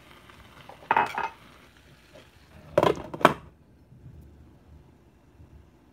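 A glass lid with a steel knob clattering onto a stainless steel frying pan: a cluster of knocks about a second in, then two more around three seconds in as it settles. The faint hiss of the vegetables cooking in the pan goes quiet once the lid is on.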